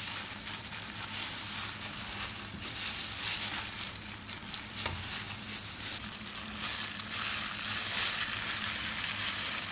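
Steady hiss with a faint low hum, and soft rustling and light taps from plastic-gloved hands laying thin lotus root slices onto a ceramic plate.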